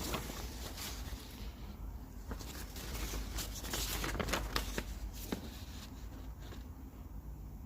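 Scattered light clicks and rustling, irregular and close by, from things being handled.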